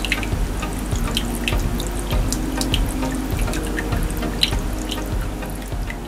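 Water streaming from the plastic spouts of a small homemade pump-fed fountain and splashing into the water below: a steady trickle with many small drips and splashes.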